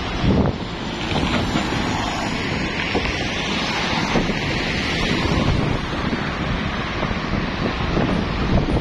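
Wind buffeting the microphone over a steady rush of outdoor traffic noise, with scattered small knocks.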